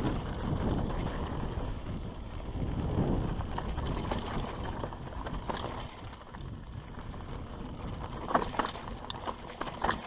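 Mountain bike descending a dry dirt downhill trail: tyres rumbling over the dirt and wind buffeting the helmet-camera microphone, with a few sharp rattling knocks from the bike over bumps near the end.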